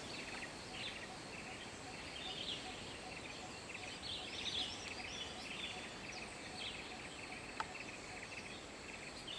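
Faint outdoor ambience of many small bird chirps and calls scattered high in the trees, over a low steady rush of wind. There is one soft click near the end.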